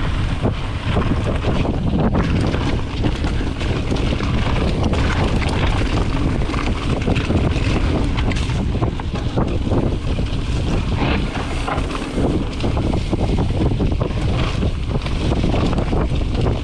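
Wind rushing over a camera microphone as a mountain bike descends a rocky singletrack, with tyre noise on dirt and rock and frequent rattling knocks from the bike.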